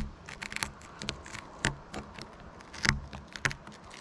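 Masking tape being peeled off a surfboard deck from around a leash plug whose resin has just set, then crumpled in the fingers: irregular crackles and small ticks, with a couple of sharper snaps.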